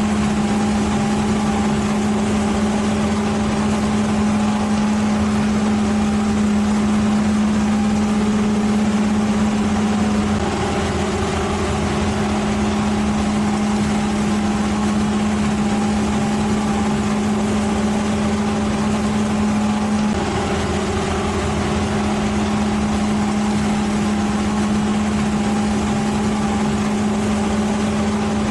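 An engine running steadily at a constant pitch, its tone shifting slightly about ten and twenty seconds in.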